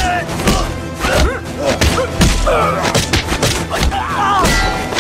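Dramatic action music under a fight, with repeated thuds of blows landing and the fighters' grunts and yells.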